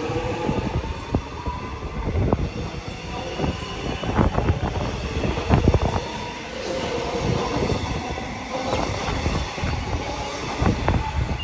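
A Melbourne Metro electric suburban train rolls past along the platform, its wheels knocking over the rail joints over a steady rumble. A thin whine comes and goes, strongest near the start.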